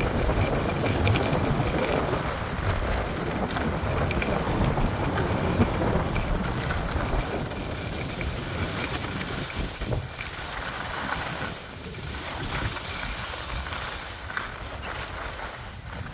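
Wind rushing over the microphone of a camera carried by a skier on a downhill run, with the skis scraping and hissing over packed snow. It is loudest in the first half and eases off after about ten seconds as the pace slows.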